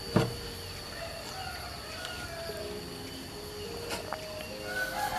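Aluminium bonsai wire being unwound by hand from a mulberry bonsai's branches, with a sharp click just after the start and another about four seconds in. Faint wavering animal calls and a steady high-pitched tone sound in the background.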